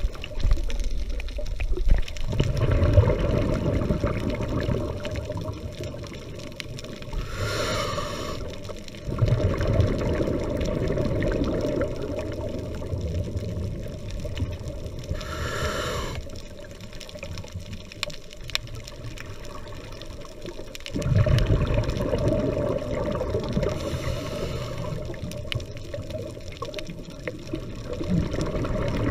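Muffled underwater water noise heard through a camera's waterproof housing: a steady low rushing and sloshing, with a brief, hissier surge about every eight seconds.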